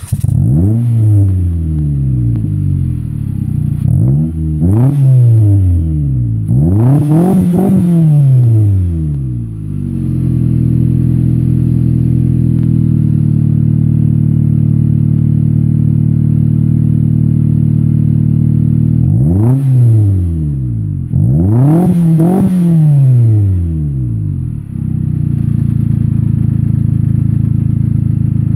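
Mitsubishi Lancer GTS's 2.4-litre four-cylinder heard through a GReddy RS exhaust with the resonator deleted. The engine is revved three times in quick succession, the third the highest, settles into a steady idle for about nine seconds, then is revved twice more and returns to idle.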